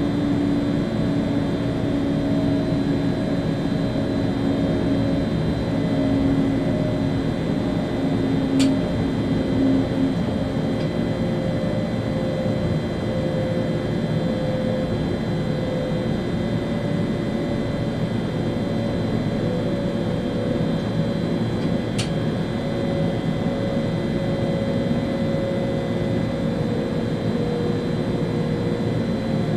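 Steady running noise inside the driver's cab of an ÖBB Railjet at speed: wheel-on-rail rolling noise with a few steady humming tones that drift slightly in pitch. Two short sharp clicks, about eight and a half and twenty-two seconds in.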